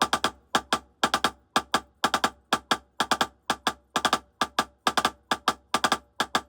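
Drumsticks playing Hertas: quick groups of strokes, the single-stroke three figure, repeated steadily about twice a second. A nearby drum kit and cymbals ring along with the strokes.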